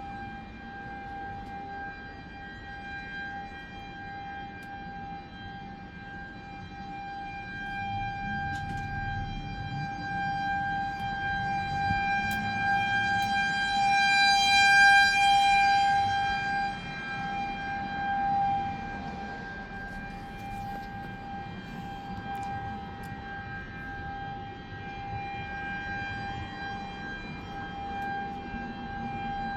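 Outdoor civil defense warning siren sounding a steady, unbroken tone during a test. Its pitch holds level while its loudness swells to a peak about halfway through and then eases off.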